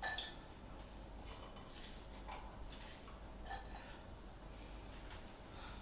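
Pieces of diced apple dropped by hand into a small metal saucepan: faint, scattered taps and clinks, a few seconds apart.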